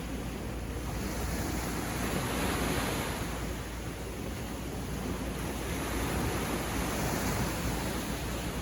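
Sea waves washing onto a beach, a steady surf noise that swells as a wave breaks about two seconds in and again near the end.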